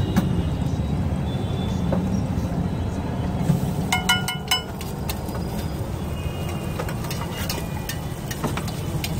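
A few ringing metal clinks about four seconds in, a spoon striking a steel tin as butter is scooped onto a hot iron tawa, then a light sizzle of the butter melting on the griddle, over steady street background noise.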